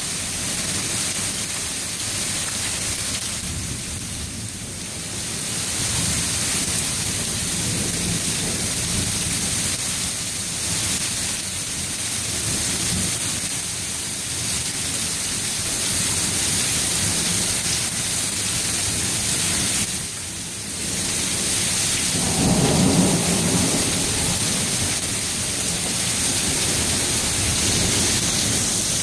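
Heavy hail and rain pelting down in a storm, a steady dense hiss of impacts. A low rumble of thunder swells about three-quarters of the way through.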